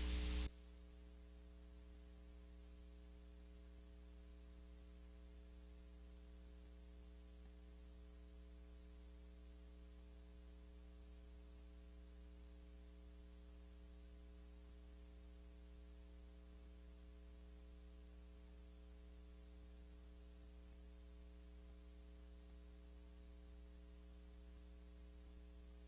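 Near silence, with a faint, steady electrical mains hum and a little hiss in the recording.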